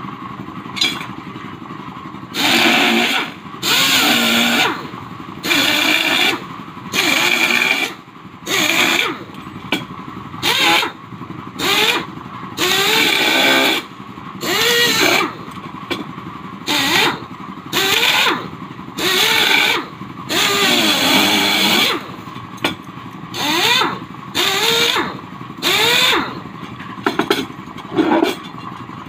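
A motorcycle engine revved in short repeated bursts, about one every one to two seconds, each rising and falling in pitch.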